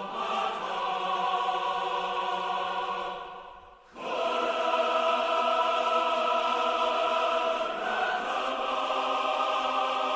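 A steady droning hum made of several held tones with a slight waver. It fades out about three and a half seconds in and comes back abruptly half a second later.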